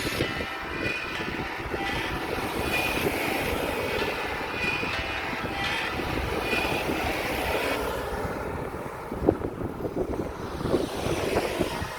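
Steady wind rush and rolling road noise on the microphone of a camera riding along on a bicycle, with a few sharp bumps near the end.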